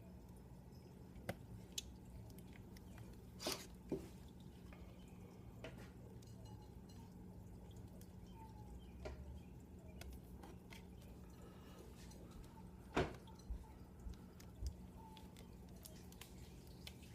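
Scattered small clicks and light taps from handling a laptop's LCD panel and the adhesive tape over its ribbon connector, a few louder ones about three and a half seconds, four seconds and thirteen seconds in, over a faint steady hum.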